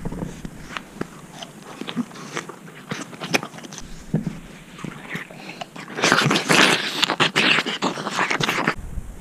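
Close-up biting and chewing of a crisp snack: a few small clicks of handling at first, then about six seconds in a dense run of loud crunches for nearly three seconds.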